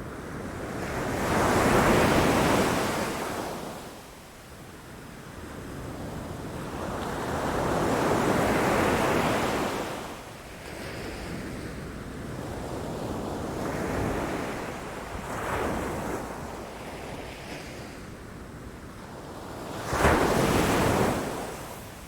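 Sea waves breaking against rocks and the shore, the surf swelling and falling away about every five or six seconds, with a sudden, louder crash near the end.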